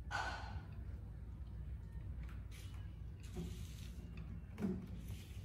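A baby monkey scrambling over a glass tabletop and wooden sofa armrests: a few short knocks and scuffs, the loudest about four and a half seconds in, over a steady low hum.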